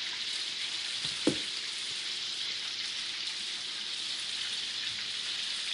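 Chicken pieces frying in hot oil, a steady sizzle, with a single short knock about a second in.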